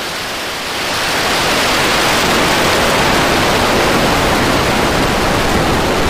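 Rocket exhaust noise from SpaceX Starship SN10's three Raptor engines at full thrust during ascent: a steady, rushing noise that grows louder about a second in.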